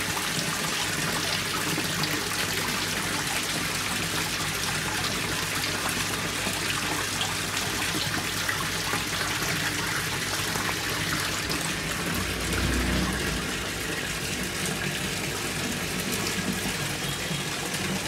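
Water splashing and churning steadily as the jet from an ACP-631 submersible aquarium pump sprays against a tiled tank wall, with a faint steady hum from the pump. About twelve seconds in there is a brief low rumble.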